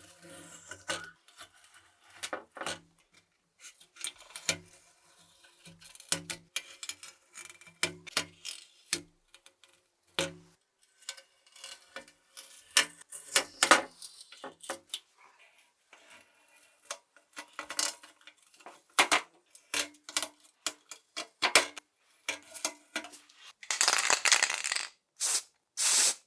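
Small hard metal parts clinking and clattering as they are handled, in many irregular knocks, some with a brief ring. There is a short hiss near the end.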